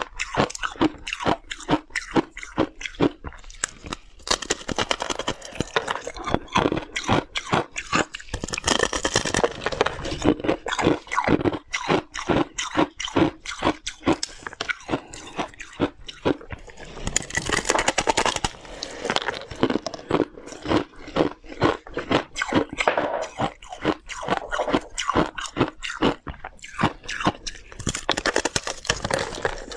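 Close-up crunching and chewing of powdery freezer frost: a dense, continuous run of small, crisp crunches as mouthfuls of the soft frost are bitten off and chewed.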